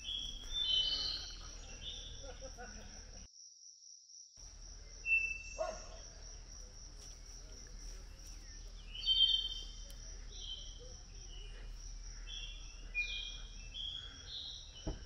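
Steady high-pitched insect trill with many short bird chirps over it. The sound drops out for about a second a few seconds in.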